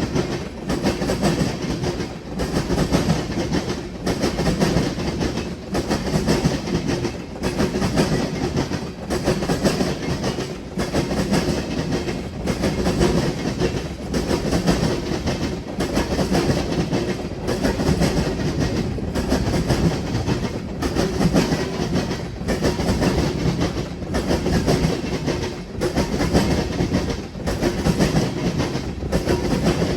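Freight train cars rolling over a railroad diamond crossing, their wheels banging across the diamond's gaps in a steady repeating clatter about every second and a half.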